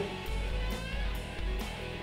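Soft background music with guitar and a steady beat.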